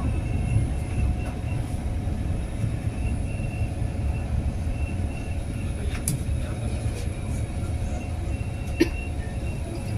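MRT train running with a steady low rumble and faint steady tones above it, and two short clicks in the second half.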